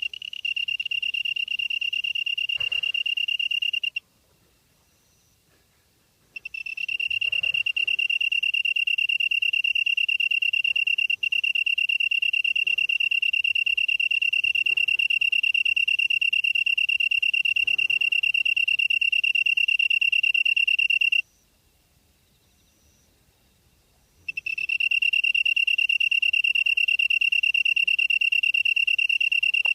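A grass insect singing one loud, steady high-pitched trill. It breaks off abruptly twice for two to three seconds, about 4 s in and again near 21 s, then starts up again.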